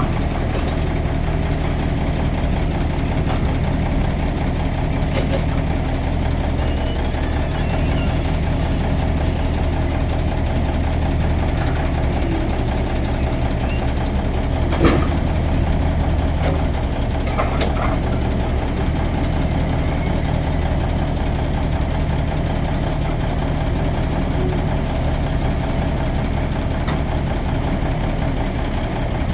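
A sawmill's engine running steadily, with a single sharp knock about halfway through.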